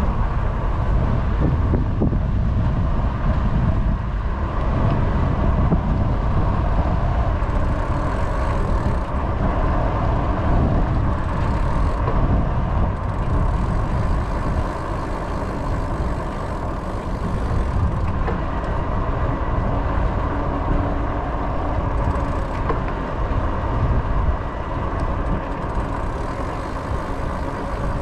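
Steady wind rumble on the microphone, mixed with rolling noise from moving along the paved asphalt path.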